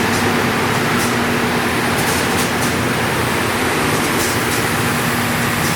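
Ramco three-head wide belt sander running with its first two sanding heads (30 hp and 25 hp drums) spinning and the feed conveyor at its highest speed: a steady machine drone with a constant hum.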